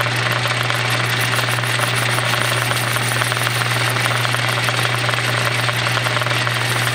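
Metal lathe running at a steady speed with a strong low hum and a noisy whir while its tool chamfers the edge of the spinning pulley blank.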